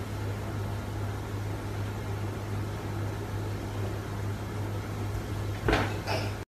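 A steady low electrical hum with hiss, the room's background noise. Near the end come two short, sharper bursts of sound.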